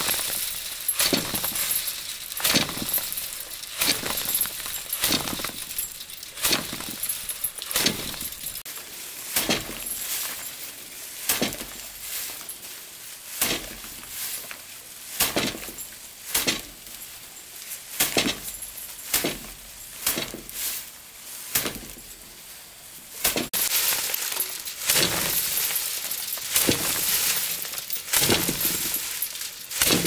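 Bundles of harvested rice struck against a hard surface to thresh them by hand: a sharp strike about once every second or so, each followed by a rattling scatter of grain. The rattling runs thicker and more continuous for several seconds near the end.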